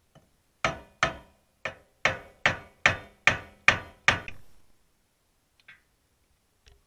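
Hammer blows on the rusty rear brake drum of a Yamaha Big Bear 400 ATV, knocking it to free it from the axle, where it is stuck tight. About nine sharp metallic strikes come a little under half a second apart, each ringing briefly, followed by two light taps near the end.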